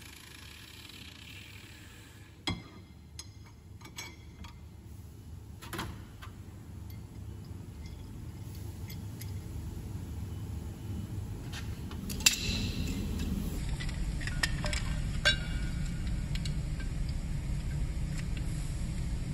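Small steel parts clinking and tapping against a metal bench and vice, a few separate sharp clinks with the loudest about two-thirds of the way through, over a low rumble that grows steadily louder.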